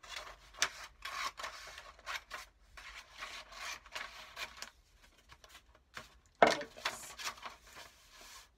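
Scissors snipping through a double layer of glued paper in a run of short, irregular cuts, with paper rustling. One louder, sharper noise comes about six and a half seconds in.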